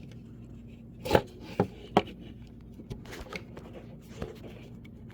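Knocks and clicks from handling a cordless drill's battery charger and its plug: three sharp knocks between about one and two seconds in, then lighter taps.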